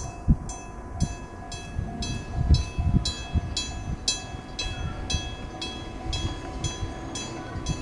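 Electronic train-approach warning alarm beeping about twice a second, signalling that an Enoden train is drawing near on the street-running track, with low thumps and rumble underneath.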